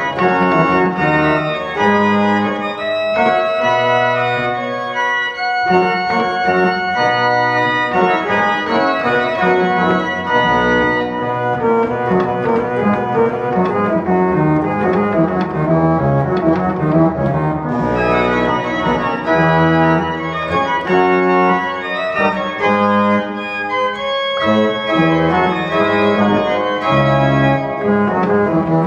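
Baroque pipe organ built by Arp Schnitger, played by an organist: a piece in several voices, with held chords under moving lines at a steady full level. The playing breaks briefly about five and a half seconds in and again near the 24-second mark.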